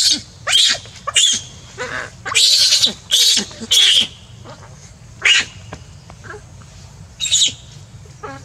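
Infant macaque crying in shrill, falling screams: a rapid string of them over the first four seconds, then two more spaced well apart.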